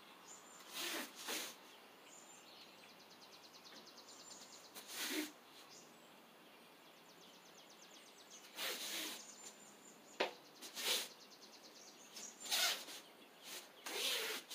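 Short bursts of forceful breathing and body-movement noise from a person performing a karate kata, about ten in all, each keeping time with a strike or block, with a sharp snap about ten seconds in.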